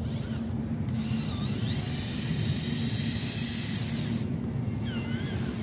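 Small electric motor of a radio-controlled dump truck whirring steadily as the tipper bed lifts, with a hiss of dirt sliding out of the bed for a few seconds in the middle.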